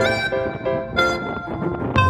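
Background music: a melody of short, sustained pitched notes, with a higher line gliding down between notes.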